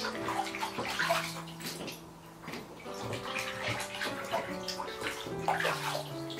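Water splashing and sloshing as hands wash cucumbers in a plastic basin, with irregular splashes throughout. Soft background music of held notes plays underneath.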